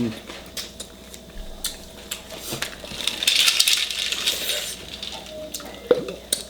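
Eating noises at a table: scattered light clicks and clinks of utensils against dishes, with a stretch of hissy crackle about three seconds in.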